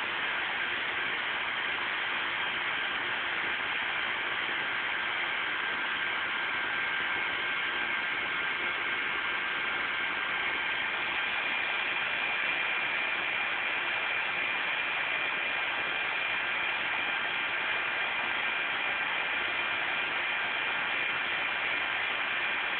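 Steady, even hiss of background noise with a few faint high steady tones running through it.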